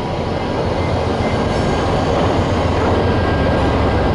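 VIA Rail passenger train rolling through without stopping: a steady rumble of diesel locomotives and wheels on the rails, growing slightly louder.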